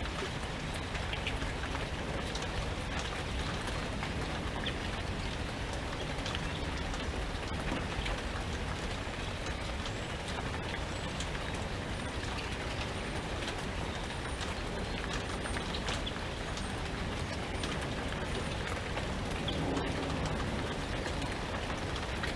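Steady rain falling, with drops ticking and a low wind rumble underneath. A few faint, high bird chirps come through around the middle.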